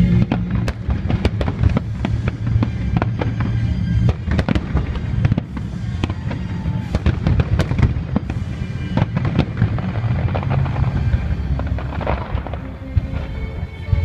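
Aerial fireworks bursting in rapid succession, a dense run of crackles and bangs, with music playing underneath as part of the fireworks show.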